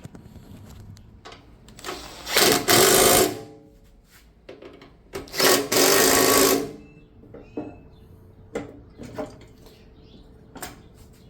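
A power tool run in two bursts, the first about a second long and the second about a second and a half, with a rapid buzzing; scattered clicks and knocks fill the rest.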